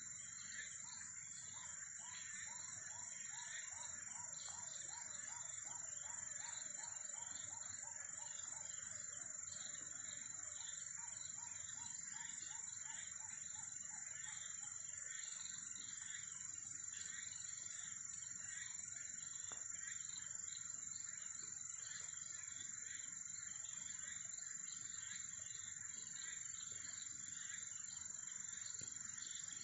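Insect chorus: a steady, high-pitched trill runs on under repeated pulsing chirps. In the first several seconds a run of lower chirps repeats about three times a second.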